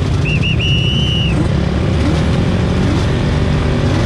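Several racing quad bike engines idling on the start grid, with small throttle blips about once a second. Near the start a high chirping tone sounds over them: two short chirps, then a longer held note.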